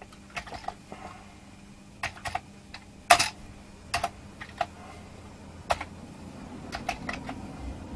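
Typing on a Commodore C16's keyboard: irregular plastic key clicks, some in quick runs and some alone, with pauses between them.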